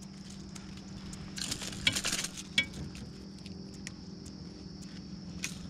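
Small metal clinks and rattles of pliers and a lip grip working the treble hooks of a plug lure free from a peacock bass's mouth. A denser burst of rattling comes about a second and a half in, with single clicks scattered around it.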